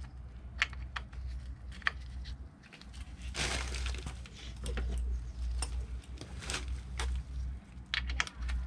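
Scattered sharp clicks and knocks of hand tools and small metal parts being handled, with a brief rustle about three and a half seconds in, over a low steady hum.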